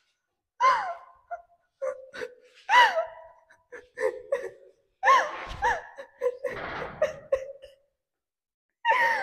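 A woman crying: gasping sobs and short wailing cries, several of them falling in pitch, broken by sharp breaths.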